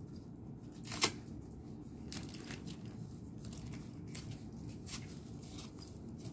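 Fabric strap of a knee support sleeve being pulled and wrapped around the knee: scattered short rustles, with one sharp snap about a second in.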